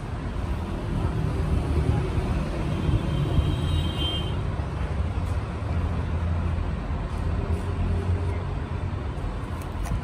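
Steady low background rumble, like nearby vehicle traffic, swelling slightly in the middle.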